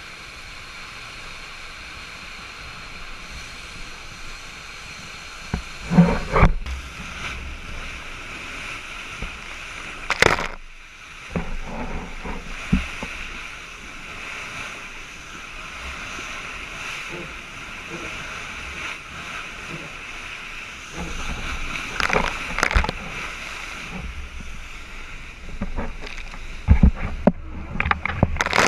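Water rushing past a sailing yacht under way, with wind noise and several loud splashes as waves hit the boat.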